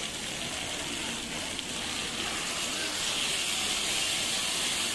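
Steak sizzling on a hot iron sizzle plate. About three seconds in, brown mushroom sauce is poured onto the plate and the sizzle swells into a louder steady hiss as the sauce boils into steam.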